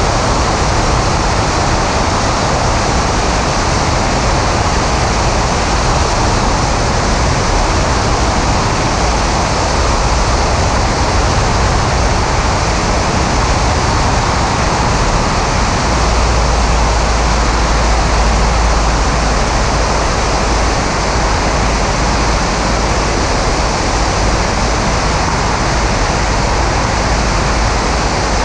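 Loud, steady rush of wind over a camera mounted outside a Maule M5-180C light aircraft in flight, with the noise of its engine and propeller mixed in. The low rumble grows heavier a little past halfway.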